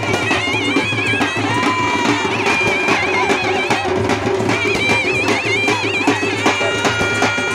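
Loud traditional folk music from a street band: a wind instrument plays a wavering, heavily ornamented high melody over steady drumming.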